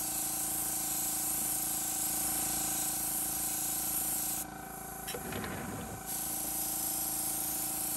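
Iwata Eclipse dual-action airbrush spraying a thin weathering wash, a steady hiss over the hum of the air compressor running. The spray stops for about a second and a half a little past the middle, then starts again while the compressor hum carries on.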